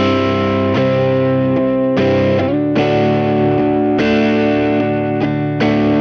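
Squier Stratocaster electric guitar played through a Kokko overdrive pedal into a Peavey BackStage Plus amp. Overdriven chords are struck and left to ring, with a new chord about every second.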